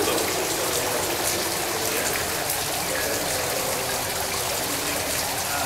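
Water streaming down the strands of a tall mylar-ribbon water curtain in a high atrium, a steady even splashing.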